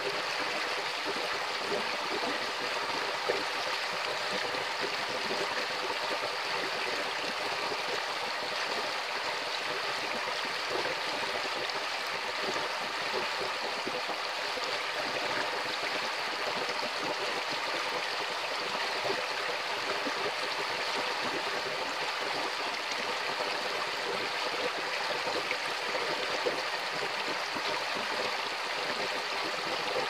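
Shallow, rocky creek flowing over a riffle: a steady, even rush of running water.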